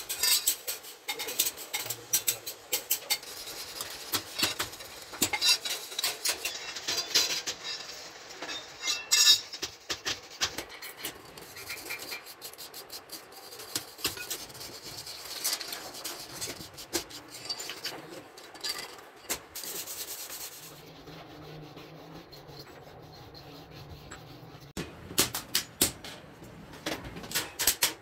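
Metal parts of a clutch plate being rubbed and filed by hand, with repeated scraping strokes and scattered metallic clinks and taps. The work pauses for a few seconds near the end before more clinks.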